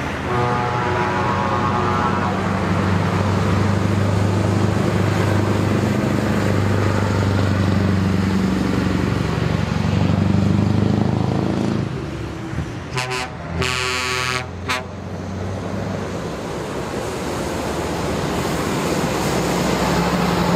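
Heavy truck engines running on loud open exhaust pipes, a deep steady rumble that fades about twelve seconds in. A horn then sounds for about a second and a half, and another truck approaches, its engine growing louder near the end.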